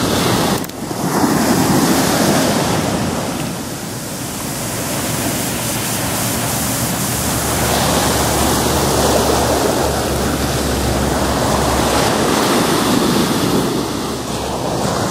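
Small ocean waves breaking and washing up a sandy beach: a continuous surf that swells and eases in slow surges.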